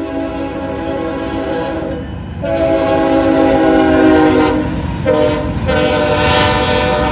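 BNSF freight locomotive's air horn blowing for the grade crossing. The end of one blast gives way to a long blast, a short one and a final long one (the long, long, short, long crossing pattern), louder as the locomotives pass close by, over the rumble of the train rolling on the rails.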